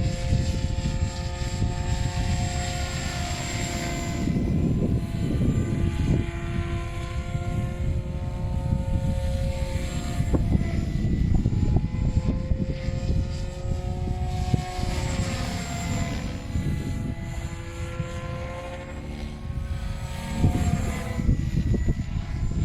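SAB Goblin 580 electric RC helicopter in flight, its rotor and motor whine gliding up and down in pitch as it manoeuvres, with the head speed set at about 2150 rpm. Strong gusty wind buffets the microphone underneath.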